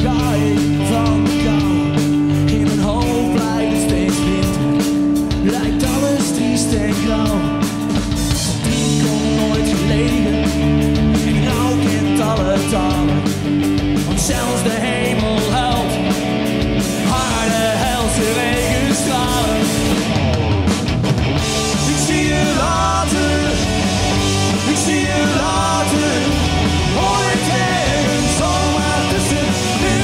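Punk rock band playing live, loud and steady: electric guitars and drums.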